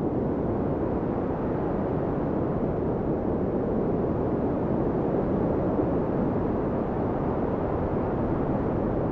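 Storm wind blowing across the microphone: a steady, low rushing noise with no letup.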